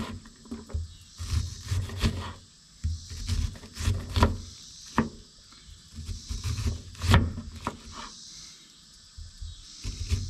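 Chef's knife chopping an onion on a bamboo cutting board: irregular knocks of the blade striking the wood, each with a dull thump, a few sharper and louder than the rest.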